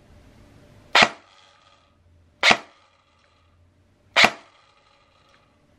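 Classic Army PX9 airsoft electric gun firing three single semi-auto shots, about a second and a half apart. Each shot is followed by a ringing from the gearbox spring that fades over about a second, a very strong spring reverberation.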